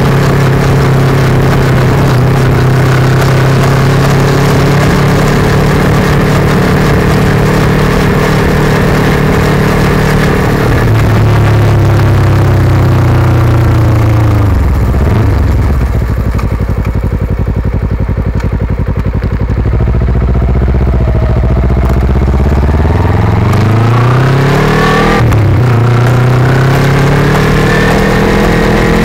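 Kawasaki Ninja 250 FI parallel-twin engine through an aftermarket Yoshimura carbon-fibre exhaust, heard close to the muffler while riding. It runs steadily at first, then the revs fall away and stay low through the middle as the bike slows. Near the end it accelerates again, with a gear change in between.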